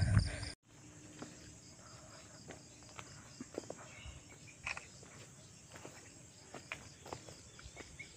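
Faint insects chirping in a steady, evenly repeating high-pitched pulse, with scattered soft clicks.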